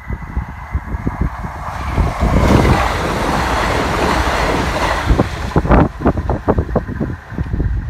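CrossCountry Class 170 Turbostar diesel multiple unit passing at speed, a rush of wheel, rail and engine noise that builds about two seconds in and drops away after about five. Wind buffets the microphone throughout.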